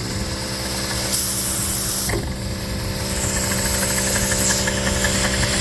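Dake square-piston steam engine running on compressed air at about 110 psi, turning over steadily with a rapid even beat, with a burst of air hissing from the exhaust about a second in.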